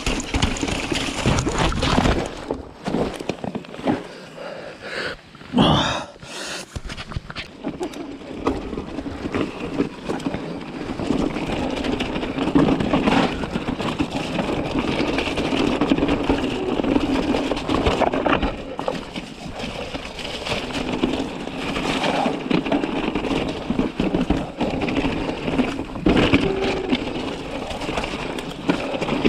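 Giant Reign full-suspension mountain bike riding down a rocky singletrack: tyres rolling and crunching over loose stones, with continual rattles and knocks from the bike. A brief rising squeal about six seconds in.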